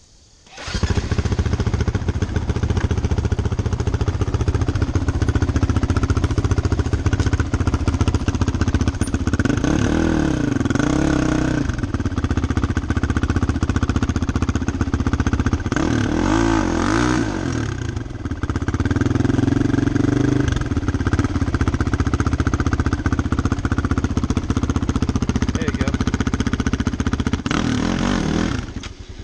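Single-cylinder dual-sport motorcycle engines (a Kawasaki KLR650 and a Honda CRF450X) running steadily. An engine revs up and back down in bursts about ten, sixteen and twenty seconds in, and again near the end.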